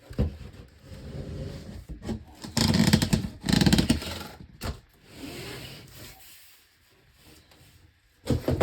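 Rubbing and scraping of an oversized hardcover book being worked out of its box, in several uneven pulls, loudest about three to four seconds in.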